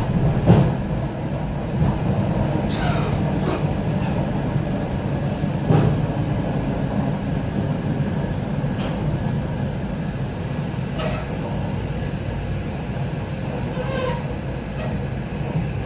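ET2M electric multiple unit running at speed, heard from inside a passenger car: a steady rumble of wheels on rail, with a few separate knocks every few seconds.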